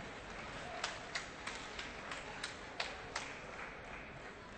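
Table tennis ball clicking back and forth in a rally: about seven sharp ticks over two and a half seconds as it strikes the paddles and the table, over a faint murmur of the hall.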